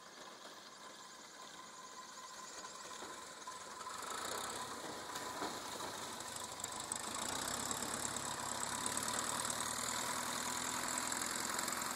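Piper PA-11 Cub on skis taxiing across snow, its light-aircraft engine and propeller running and growing steadily louder as the plane comes closer, with a clear rise about four seconds in and again about seven seconds in.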